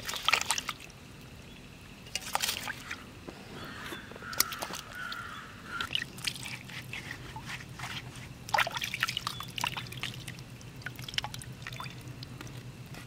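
Water splashing and dripping in a steel bowl as whole bitter gourds are rubbed clean by hand and lifted out, in irregular bursts with an occasional clink against the bowl.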